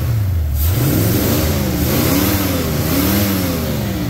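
Warmed-up Ford 429 Thunderjet big-block V8, fed by a new Edelbrock VRS 4150 four-barrel double-pumper carburetor, being revved by hand at the carburetor: three quick throttle blips, the engine pitch rising and falling with each before settling back.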